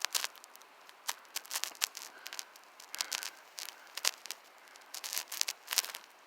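Irregular sharp crackling and crunching of dry, frozen leaf litter and twigs underfoot, a couple of dozen separate clicks and crunches at an uneven pace.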